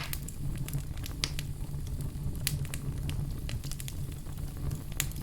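Fire crackling in a fireplace: irregular sharp pops and snaps over a steady low rumble of the flames, with clearer pops about a second in, halfway through and near the end.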